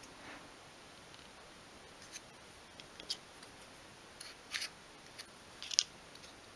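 Faint handling sounds of a small wooden miniature table frame being turned and adjusted in the hands: a few short, light clicks and scrapes of wood, spaced about a second apart.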